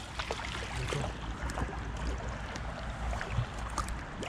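Kayak moving on a river: paddle dips and water splashing and running along the hull, with scattered small splashes and knocks over a steady low rumble.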